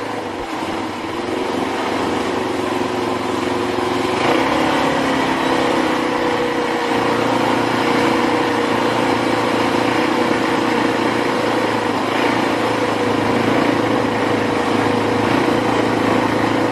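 ATV (quad bike) engine running steadily under way, its pitch drifting up and down a little with the throttle.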